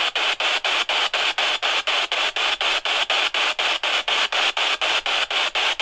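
Spirit box sweeping through radio stations: continuous hiss chopped into short pulses about six times a second.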